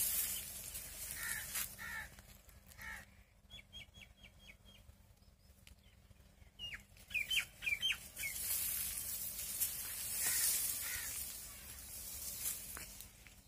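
Outdoor birdsong: a few crow caws in the first seconds, then a small bird's quick run of five high chirps and a cluster of sharp falling notes. A hissing rustle comes and goes beneath the calls.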